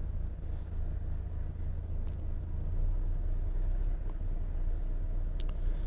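Delivery truck running, a steady low engine and road rumble with a couple of faint ticks.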